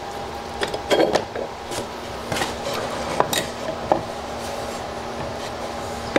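Metal bar clamps clinking and wooden boards knocking as they are handled and set into position for an edge glue-up. There are a series of sharp clinks and knocks in the first four seconds, then quieter handling, over a steady hum.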